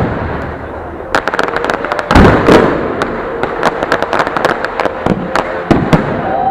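Fireworks display: rapid crackling bursts throughout, with a heavy boom about two seconds in and two more shortly before the end.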